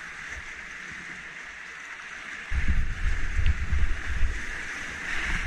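Rushing whitewater of a flooded creek rapid heard from a kayak, a steady hiss of churning water. About two and a half seconds in, loud uneven low rumbling joins it as the boat runs through the waves.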